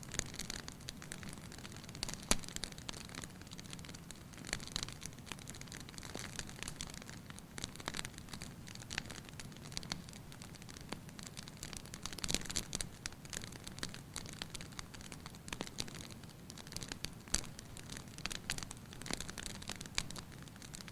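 Wood fire crackling in a fireplace, with irregular snaps and pops throughout and a sharper pop about two seconds in.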